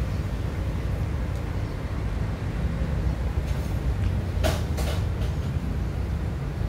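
A cat chewing corn kernels, with two short crunches about halfway through, over a steady low outdoor rumble.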